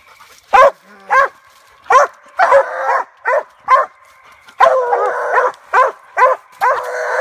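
Treeing Walker coonhounds barking treed at a tree: a steady run of short barks mixed with a few longer, drawn-out calls. This bark tells the hunters that a raccoon is up the tree.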